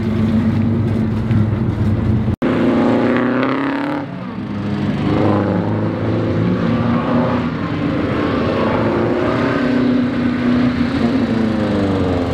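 Pre-war car engine running and revved up and down repeatedly as the car manoeuvres, with the sound cut off for an instant about two seconds in.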